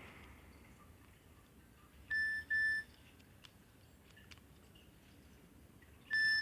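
A Nokia 6300 mobile phone giving a pair of short, steady electronic beeps about two seconds in, and another pair about four seconds later.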